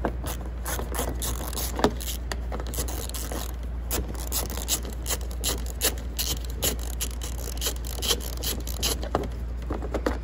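Hand ratchet clicking in quick, irregular runs as a socket backs a bolt out of the underside of a front bumper, over a steady low hum.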